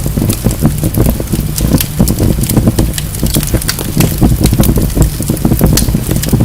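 Wood fire burning in a fireplace: a steady low rumble of flames with irregular sharp crackles and pops from the logs.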